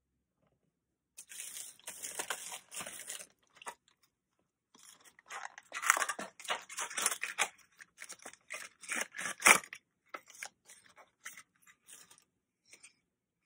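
A bookmark's card-and-plastic retail packaging being handled and opened, giving bursts of rustling and crinkling with sharp clicks scattered through, the loudest click about two-thirds of the way in.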